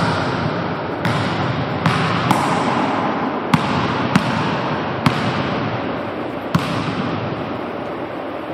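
Basketball bouncing on a hardwood gym floor: several sharp, echoing bounces at uneven intervals of about one to one and a half seconds, over a steady background hiss.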